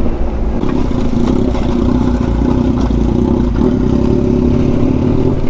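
Yamaha Ténéré 700's parallel-twin engine running under way at fairly steady revs.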